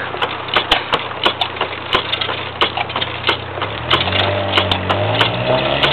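A hand-held gouge cuts into a spinning bark-covered wood blank on a foot-powered treadle lathe, giving a rough scraping with many sharp clicks as chips fly off. About four seconds in, a low hum comes in and rises slightly in pitch.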